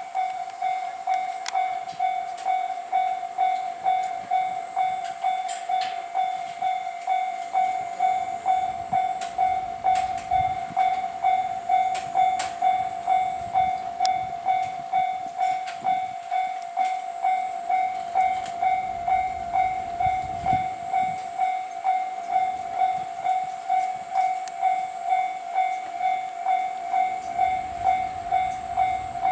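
Japanese level-crossing warning bell ringing steadily, an evenly repeating electronic clang a bit under twice a second.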